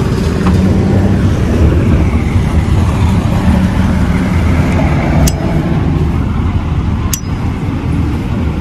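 Steady low rumble of street traffic with a vehicle engine running, and two short sharp clicks about five and seven seconds in.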